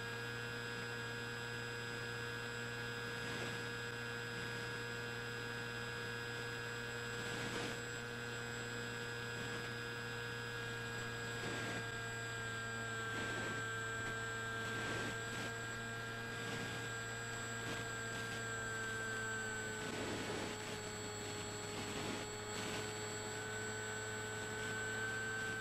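Zeta Phantom flying wing's electric motor and propeller running steadily in cruise, picked up by the onboard camera as a steady multi-tone hum. Its pitch sags slightly in the second half and lifts again near the end.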